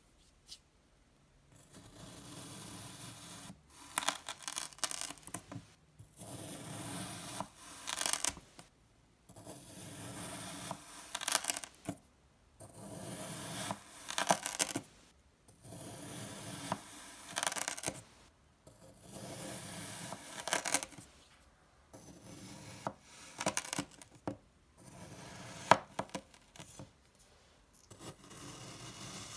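Kitchen knife slicing through kinetic sand: a series of grainy scraping cuts, one about every two to three seconds, with sharp clicks among them and a louder click about 26 seconds in.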